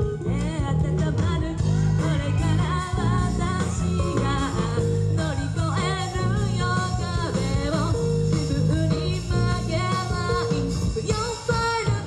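Live rock band playing: a lead singer singing into a microphone over electric guitar, bass and keyboards.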